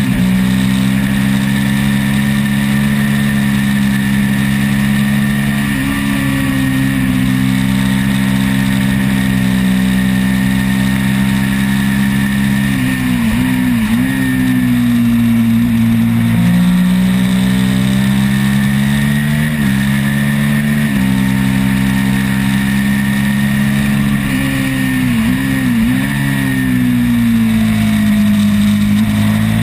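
Twin-cylinder race motorcycle engine running hard at high revs, heard from on board with wind noise. Its pitch holds steady, then falls with quick throttle blips about halfway through and again near the end, as on downshifts into corners, before climbing again under acceleration.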